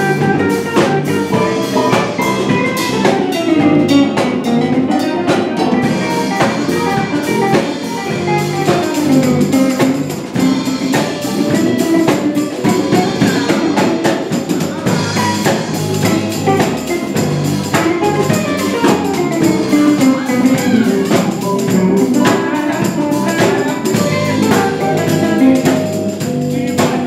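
Live band playing an instrumental number: drum kit, electric guitar, keyboard and bass guitar playing together.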